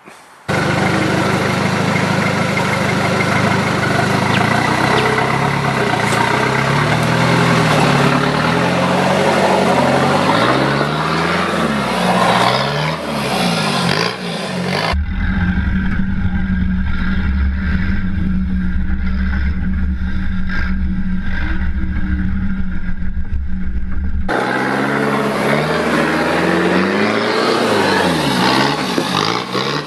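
Toyota Hilux 3.0 turbo diesel engine working the truck over rock ledges, its revs rising and falling again and again as it crawls. About halfway through, for some nine seconds, the sound narrows to a deep, low rumble with the higher tones gone, before the rising and falling revs return.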